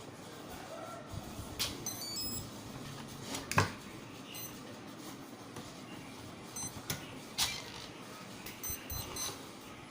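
A few sharp clicks and knocks from handling, with several groups of short, high electronic beeps.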